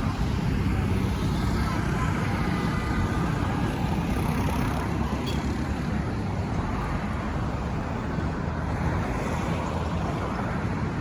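Busy street traffic: a steady, continuous rumble of passing motor vehicles.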